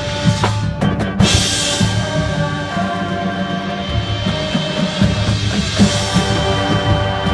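High school marching band playing: winds hold sustained chords over a steady pulse from the bass drums and percussion, with a crash about a second in.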